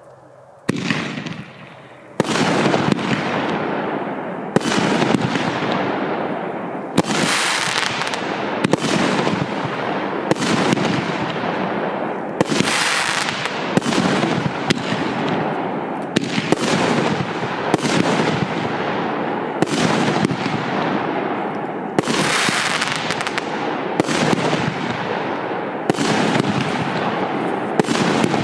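A 20-shot, 50 mm consumer firework battery (Piromax PXB3706 'Caliber') firing, starting about a second in: a sharp report every one to two seconds, with dense crackling from the bursting stars filling the gaps between shots.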